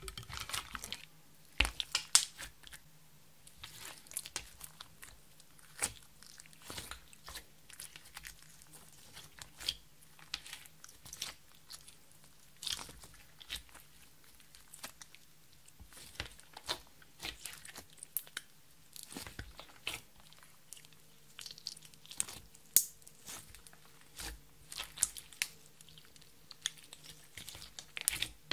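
Clear slime mixed with crushed makeup being kneaded, pressed and stretched by hand, giving irregular sticky clicks and crackling pops.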